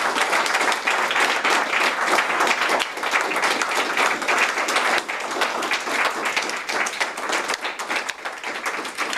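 An audience applauding, many hands clapping together without a break.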